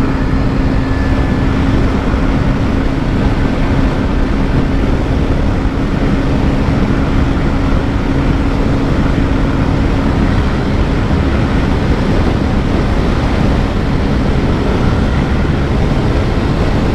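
Bajaj Pulsar 125's single-cylinder engine running flat out in fifth gear at a little over 100 km/h, under a heavy, steady rush of wind noise. A steady engine note is heard through the wind and fades into it about ten seconds in.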